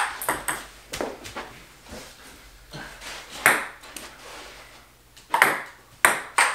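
Table-tennis ball clicking off paddles and bouncing on the table in a rally: sharp taps at uneven intervals, a loud hit about three and a half seconds in, a quieter stretch after it, then quicker taps near the end.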